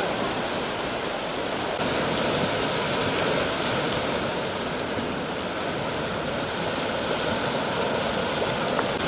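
Swollen, muddy floodwater rushing through a river channel in turbulent rapids: a steady, even rush of water.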